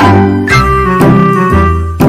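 Background music with a steady beat of about two a second, a bass line and a melody over it.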